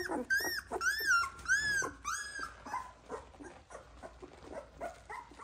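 Newborn golden retriever puppies whimpering: a quick run of high, thin squeaks, each rising then falling in pitch, about two a second, then fainter, shorter squeaks in the second half.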